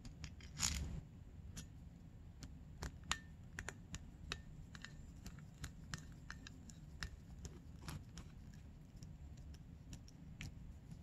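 Small metal carburetor parts and a screwdriver handled on a shop towel: scattered light clicks and taps, with one brief louder handling noise about a second in.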